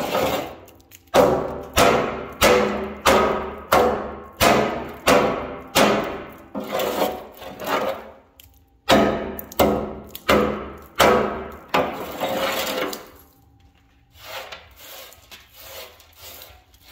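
Hammer blows on the rusted steel frame rail of a Peterbilt 349, knocking rust scale loose, about one and a half strikes a second, each ringing briefly. There is a short break near the middle, and the hammering stops about four seconds before the end, leaving only faint taps.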